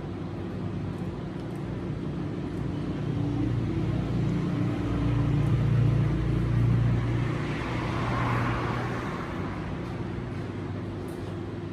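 A low, steady motor hum that swells louder about halfway through and then eases back, with a brief rise of hiss shortly after.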